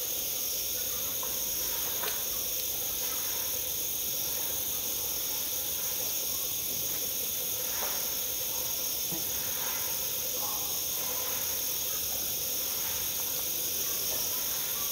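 Steady high-pitched background hiss with a few faint ticks.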